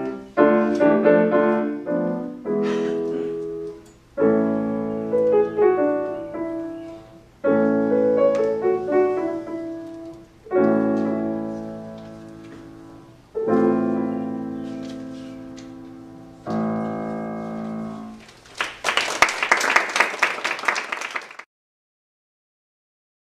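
Solo piano playing a slow passage of loud chords, struck about every three seconds and each left to ring and fade, with melody notes over them. Near the end comes a short burst of applause that cuts off suddenly.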